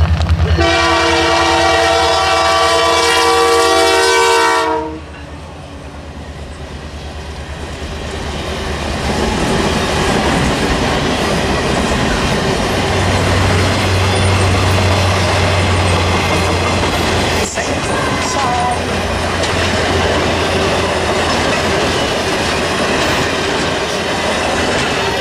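Diesel locomotive of the Canadian Pacific Holiday Train sounding its multi-chime horn in one long blast of about four seconds, over the low rumble of its engine. The horn cuts off, and the steady rumble and clatter of the train's cars rolling past over the rails follows.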